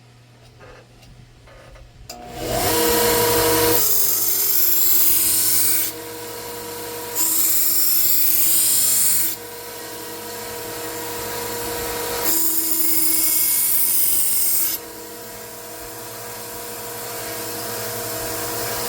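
1x30 belt sander switching on about two seconds in and running with a steady hum. A knife blade is drawn against the abrasive belt in three passes of about two seconds each, each a loud hissing grind.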